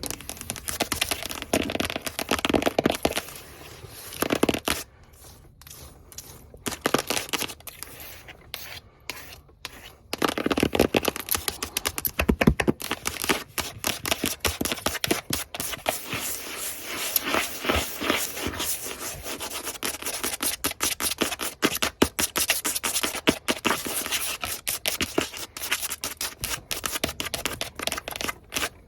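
Long fingernails scratching fast on a hard surface close to the microphone, a dense run of quick strokes that thins out for a few seconds about five seconds in.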